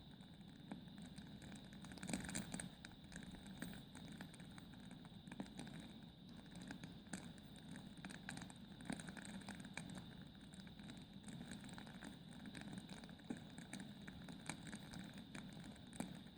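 Logs burning in a fireplace, crackling with frequent irregular sharp pops over a steady low hiss, with a louder burst of pops about two seconds in.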